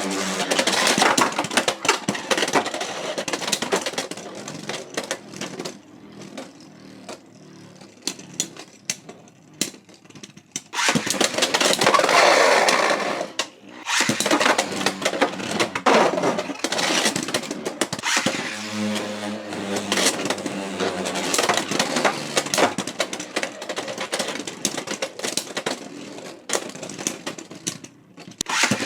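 Beyblade X spinning tops, Pegasus Blast against Tyranno Beat 7-60R, whirring and clashing in a plastic stadium: a dense, continuous run of clicks, knocks and scraping, dropping briefly about 11 and 14 seconds in.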